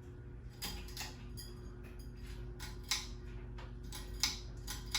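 52-inch Hunter Mayfair ceiling fan humming steadily with irregular sharp clicks and ticks, an odd noise that the owner puts down to electrical issues.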